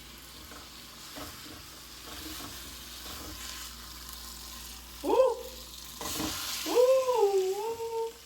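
Food frying in a pan, a steady sizzle with small clicks of a utensil stirring it. About five seconds in, a voice swoops up, and then a person hums a wavering tune over the sizzle.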